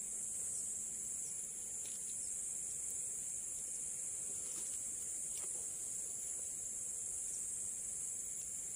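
Steady high-pitched chorus of insects, a continuous buzzing drone with a couple of faint clicks.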